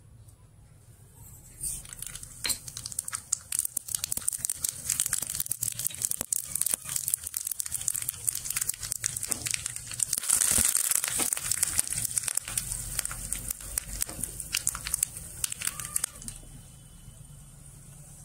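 Tadka sizzling in hot oil in a small steel tempering pan: a dense crackle of popping spluttering, swelling to its loudest about ten seconds in as more ingredients go in, then dying down near the end.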